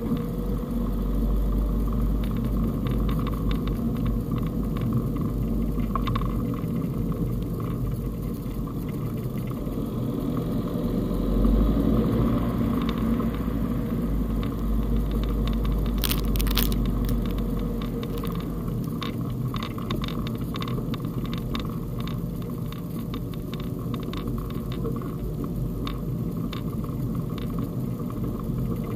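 Fiat Panda Cross driving on a snowy road, heard from inside the cabin: steady engine and road rumble with scattered crackles from the tyres, briefly louder a little before halfway, and a sharp knock past the middle.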